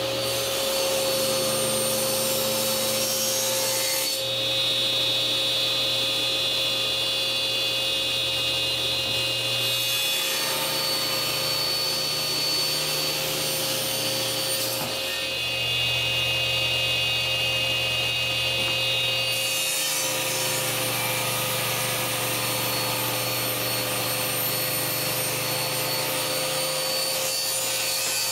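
Table saw running with a steady whine while its blade cuts through a block of spalted maple, fed along the fence in several passes; the cutting noise changes each time a pass starts or ends.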